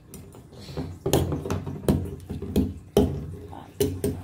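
A metal fork striking and chipping at a ball of ice frozen in a balloon, a series of sharp knocks about every half second.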